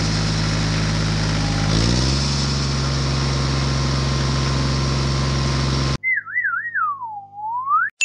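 Tractor engine sound running steadily, its pitch stepping up about two seconds in, then cutting off suddenly about six seconds in. A cartoon whistle sound effect follows, warbling and then sliding down and back up.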